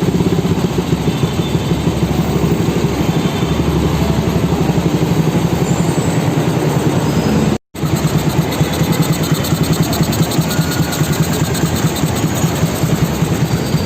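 Suzuki Raider 150's single-cylinder four-stroke engine running steadily at a low, even speed, broken off once for a moment a little past halfway.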